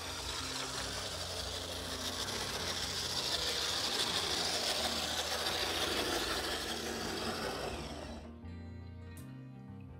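Vintage Bachmann HO F7A locomotive's ring-field motor and gearing whirring as it runs along the track at a slow speed, freshly serviced and lubricated. The whir swells toward the middle and stops abruptly about eight seconds in.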